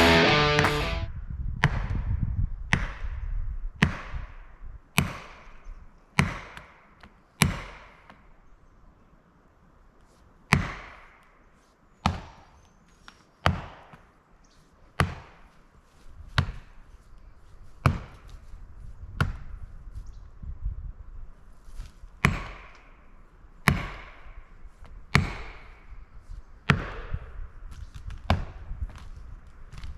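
Repeated heavy chopping blows struck into wood, about one every second and a half, with a pause of a couple of seconds about a third of the way through.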